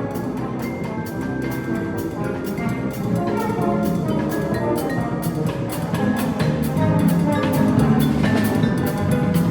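Live jazz band playing, with drums striking steadily under sustained pitched notes.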